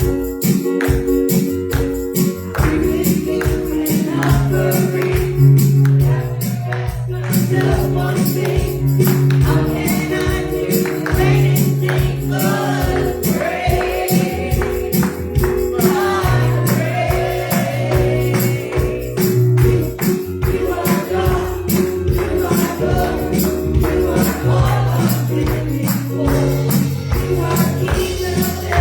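Live gospel worship music with a band, a fast steady beat with tambourine, and voices singing.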